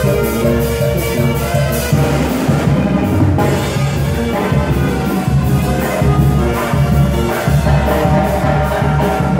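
Latin banda-style dance music played loud, with brass, a sousaphone bass line and drums keeping a steady beat.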